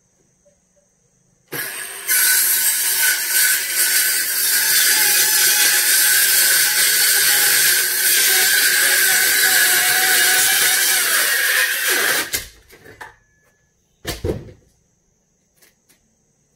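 Circular saw starting about a second and a half in and cutting through a plywood sheet for about ten seconds with a loud, high whine, then cutting off suddenly. A single thud follows about two seconds later.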